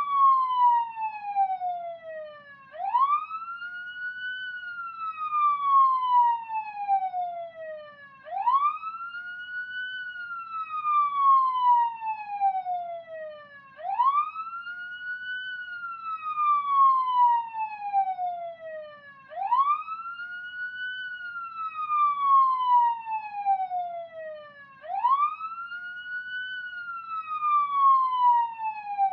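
Police car siren on a wail: each cycle rises quickly, then falls slowly. It repeats about every five and a half seconds.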